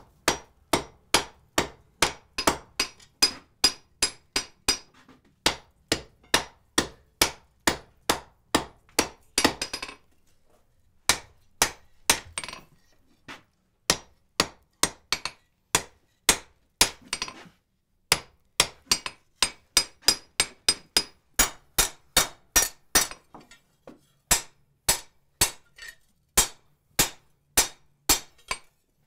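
Sledgehammer blows ringing on a steel hinge strap on the anvil, about two to three sharp strikes a second in a steady rhythm, with a few short pauses partway through. The strap is being planished: struck while fairly cold to smooth it flat against the anvil face rather than to move material.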